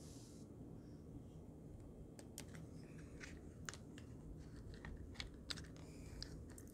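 Faint, irregular clicks and taps of small plastic parts as hands handle and fit a shotgun microphone on a vlogger kit's mount.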